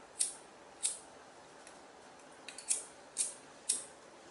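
Disposable flint lighter being struck again and again to light it, a series of sharp clicks with a quick run of three about two and a half seconds in.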